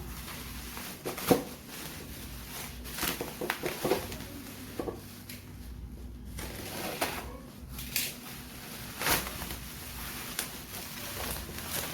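Packaging being handled during an unboxing: scattered clicks, taps and rustles over a low steady hum.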